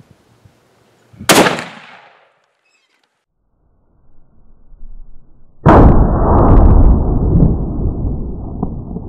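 Loud, sudden bangs around a hunting rifle shot: a sharp crack about a second in that fades within a second, then a heavier, low blast just past halfway that dies away slowly over several seconds.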